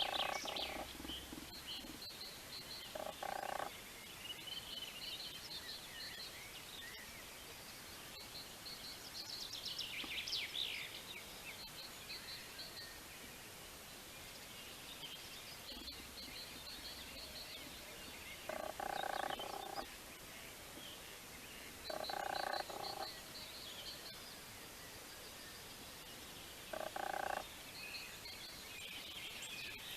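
Frogs croaking outdoors on an evening: loud calls about a second long, five times, at the start, near 3 s, and near the 19, 22 and 27 second marks. A higher, rapidly pulsing trill repeats every few seconds in the background, and a brief high chirping burst comes around ten seconds in.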